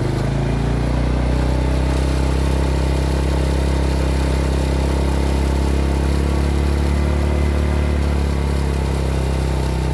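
A motor vehicle's engine running steadily at an even pitch.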